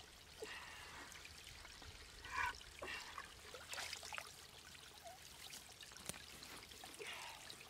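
Shallow stream water gurgling and splashing as hands dip a small container into it. The gurgles come irregularly, the loudest about two and a half seconds in.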